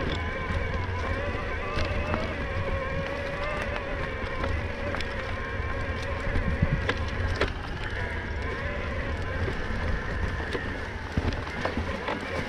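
Electric mountain bike motor whining steadily under pedal assist while climbing, over a low rumble of tyres and trail with a few short knocks.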